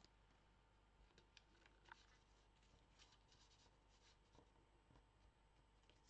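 Faint rustling and light taps of paper cards being handled and tucked into the pockets of a handmade paper folio, with scattered soft clicks through the middle of the stretch.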